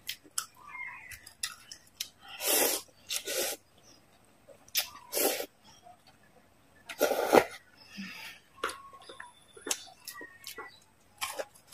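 Instant noodles slurped in several loud, hissing sucks, with wet chewing and small clicks of wooden chopsticks between them.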